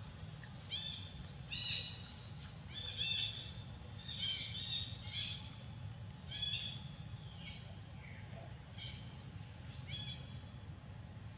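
A bird calling repeatedly in the forest: about ten short, high calls roughly a second apart, over a steady low background rumble.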